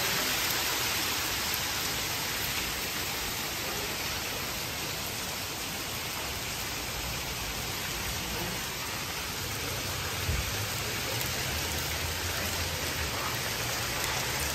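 Hail and rain falling steadily on a concrete balcony, a continuous even hiss.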